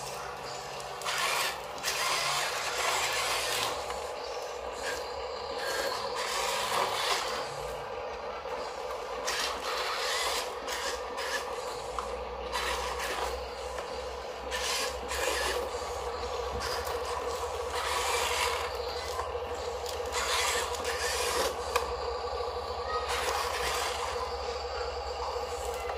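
Small electric motors and gears of radio-controlled Huina construction models (excavator and dump truck) whirring steadily, with repeated gritty scraping and rubbing of soil and stones.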